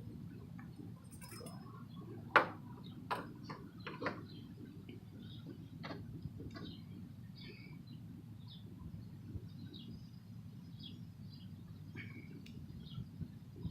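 A few sharp clicks and clinks of metal parts being handled, the loudest about two seconds in, over a steady low hum, with faint birds chirping throughout.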